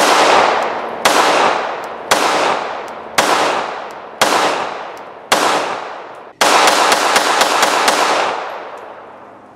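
Beretta 80X Cheetah .380 ACP pistol fired six times at about one-second intervals, then a rapid string of about seven shots, each with a long echoing tail. The pistol cycles every round from an original Beretta Model 84 magazine: it works great.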